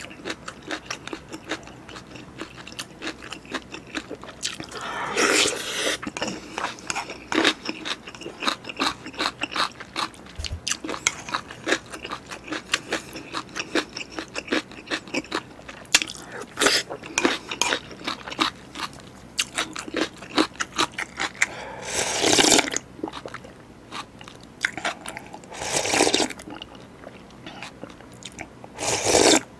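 Close-miked eating of beef bulgogi and rice in broth: rapid wet chewing and crunching mouth sounds, with a few longer noisy slurps of broth, the last as the earthenware bowl is tipped up to drink near the end.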